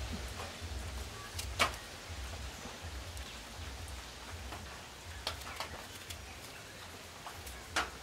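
Kitchen knife tapping on a wooden cutting board as rose apples are cut into pieces. A few sharp separate taps, the clearest about one and a half seconds in and near the end, over a low steady rumble.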